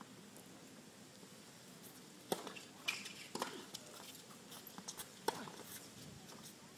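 Tennis ball struck by rackets and bouncing on a hard court during a rally: a string of sharp pops that starts a little over two seconds in.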